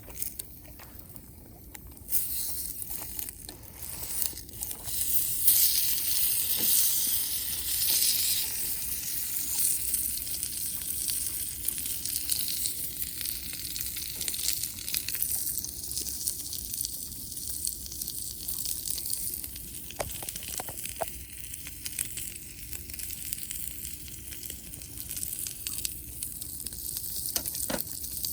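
Campfire hissing and crackling. It starts up about two seconds in, is loudest a few seconds later, then settles, with scattered sharp pops throughout.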